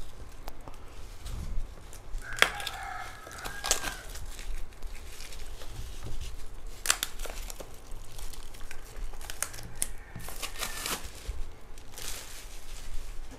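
Plastic packaging crinkling and tearing in several separate bursts as a phone's retail box is handled. Under it, two drawn-out animal calls sound, about two seconds in and again about ten seconds in.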